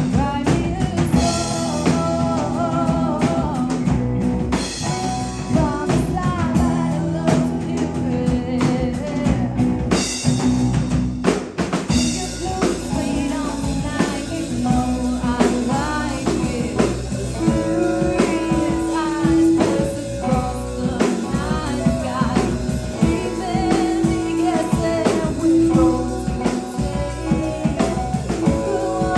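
Live rock band playing: drum kit with frequent cymbal crashes in the first part, electric guitars and bass guitar, with singing over it.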